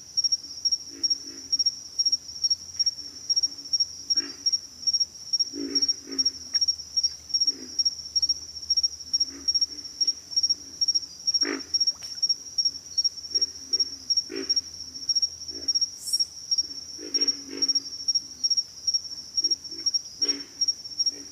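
Pig frogs giving short, low grunts at irregular intervals, over a steady high-pitched insect chorus pulsing two or three times a second, which is the loudest sound.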